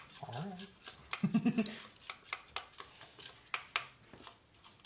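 Spoon clicking and scraping against a bowl as icing is stirred, a few light knocks a second, with a short voiced sound about a second in.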